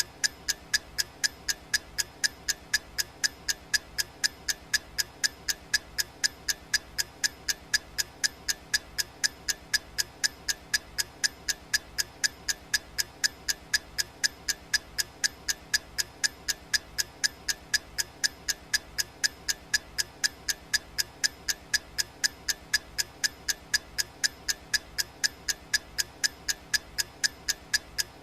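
Clock-ticking sound effect of a countdown timer: sharp, evenly spaced ticks, several a second, keeping a steady rhythm.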